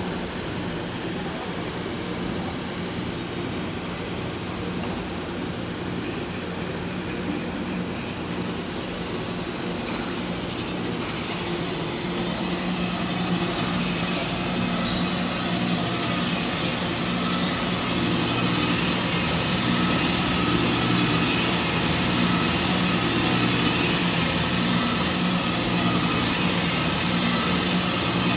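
Automatic belt polishing machine running: its electric motor hums steadily while the abrasive belt head grinds against a steel dish head, with a steady hiss of abrasive on metal. The hiss grows brighter about eight seconds in and louder a few seconds later.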